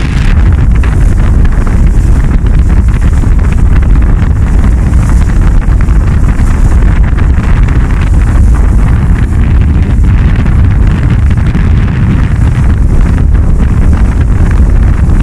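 Strong wind buffeting the microphone in a loud, steady low rumble, over the rushing hiss of the bow wave and wake foaming along the hull of a Grand Soleil 39 sailing yacht heeled and moving fast.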